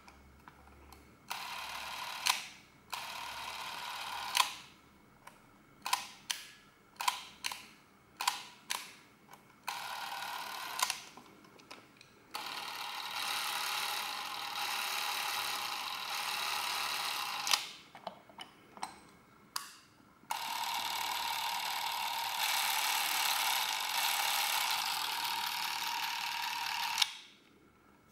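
Chinon-built Porst ZR 448 Super 8 camera's motor whirring as it is run in repeated starts and stops: two short runs, a string of brief bursts that wind down, then two longer runs of about five and seven seconds.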